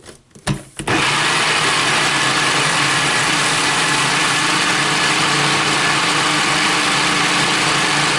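A few knocks in the first second, then a Nutribullet Classic 600 blender motor running steadily at full speed, blending a thick mix of avocado, garlic, lime juice and salt.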